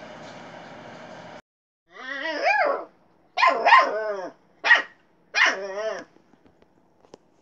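A husky puppy barking four times: short pitched barks that bend up and down in pitch. Before them, a steady rushing noise cuts off suddenly about a second and a half in.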